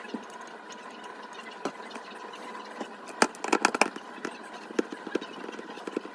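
Kitchen utensils clicking and tapping against bowls and dishes, with a quick cluster of sharp knocks a little past halfway, over a steady faint hum.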